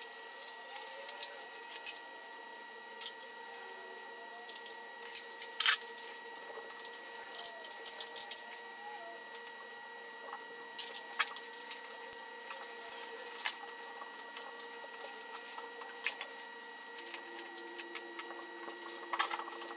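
Sped-up workshop sound of hands and tools on a Lotus Elise's 2ZZ-GE engine as the ignition coil packs are pulled: rapid scattered clicks and clatter over a steady high hum.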